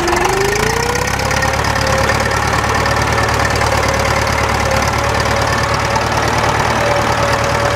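An engine running steadily; its pitch rises a little in the first second or so and then holds.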